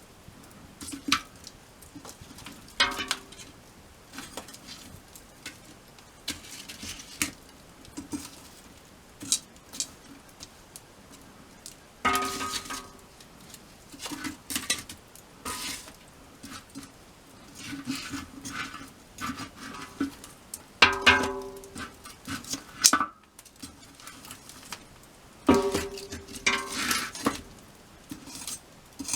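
Metal camping gear being handled: clinks and clanks, three of them louder and ringing briefly, among scattered small knocks and rustling.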